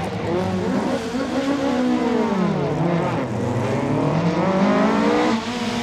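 Ford Escort Mk2 rally car engine revving hard under acceleration. The note climbs, drops sharply around three seconds in at a gear change or lift, then climbs again.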